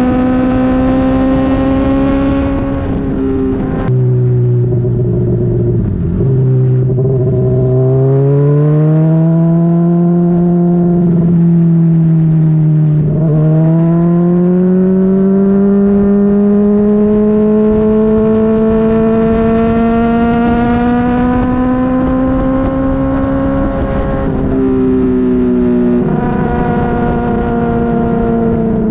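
Honda CBR600RR's inline-four engine running under way, its pitch rising and falling with throttle and gear changes. The pitch drops sharply about four seconds in, climbs, dips again about halfway through, then rises slowly for about ten seconds before stepping down twice near the end.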